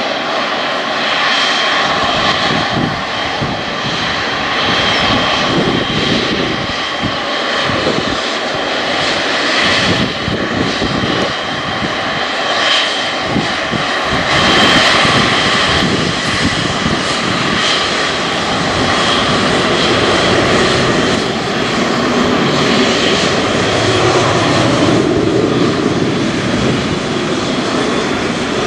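Boeing 777 freighter's twin GE90 turbofans running at takeoff thrust: a loud, steady rushing noise with a thin high whine riding on top.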